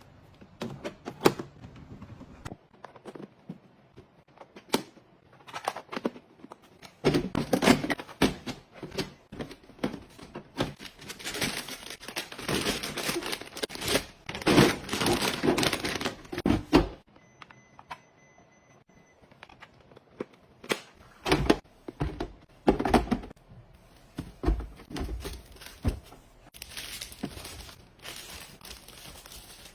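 Plastic packaging crinkling and rustling, with sharp clicks and knocks as small items are handled and set down. There is a quieter pause a little past halfway.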